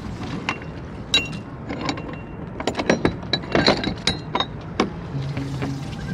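A run of light clinks and knocks, hard objects striking one another with a brief ringing after several strikes, about a dozen in all and thickest in the middle. Background music with held notes comes in near the end.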